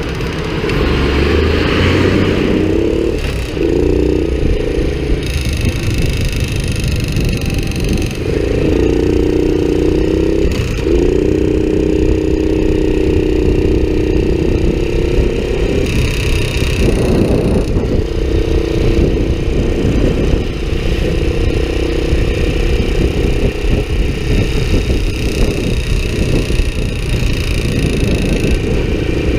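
Honda Cub's single-cylinder four-stroke engine running with a continuous rapid ticking clatter over its note. This is the abnormal noise that the owner thinks calls for checking the cam chain.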